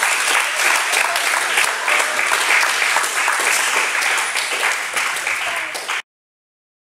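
Applause, many hands clapping for a won point at table tennis, with a few voices mixed in; it cuts off abruptly about six seconds in.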